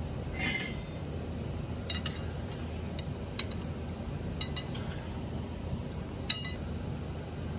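Dishes and metal utensils clinking: a brief scrape about half a second in, then several sharp clinks spread through the rest, over a steady low hum.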